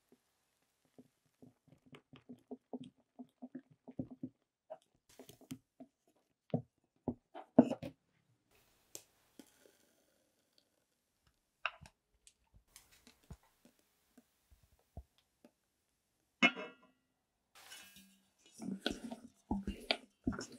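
Silicone spatula folding a mousse mixture in mixing bowls: soft wet scraping and squelching, with a few sharper knocks of utensils against the bowls, the loudest a little before the halfway point.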